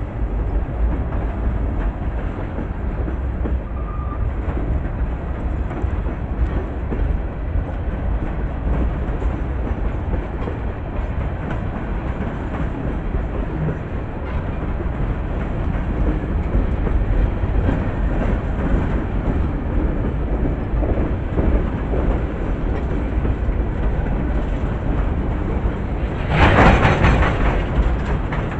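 Pan Am Railways freight train: a steady, heavy low rumble, with a louder burst of noise about 26 seconds in that lasts a second or two.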